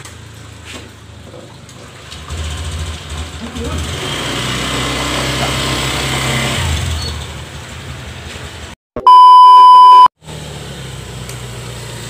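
Small motor scooter engine running and pulling away with two riders aboard. Near the end a loud, steady electronic beep lasts about a second, cut in sharply with short silent gaps on either side, like an edited-in bleep.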